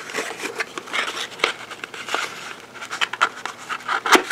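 Vintage cardboard box of 16-gauge shotgun shells handled: irregular rustling and scraping of the card, with small clicks and taps from the shells and box flap, and a sharper click about four seconds in.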